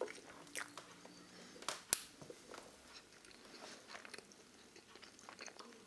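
Faint handling noise: soft clicks and rustling of plastic parts and wires as an electronic speed controller is pressed into hot glue on the boat hull's side wall, with one sharp click about two seconds in.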